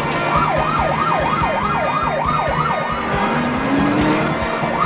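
Police patrol-car siren yelping in fast rising-and-falling sweeps, about three a second, over the rumble of car engines. About three seconds in the siren breaks off while an engine revs up, and it starts again at the end.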